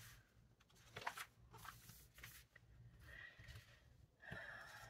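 Faint rustle of glossy magazine pages being turned by hand, a few short crinkles.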